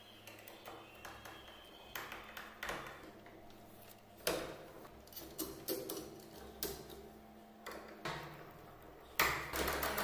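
Scattered metallic clicks, taps and rattles from a mortise door lock with lever handles being fitted and worked on a wooden door, about eight separate clicks, the loudest near the end.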